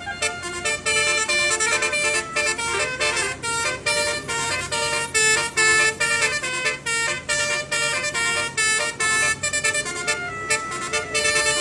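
Telolet multi-tone truck horn playing a fast melody of short, changing notes over a low steady engine hum.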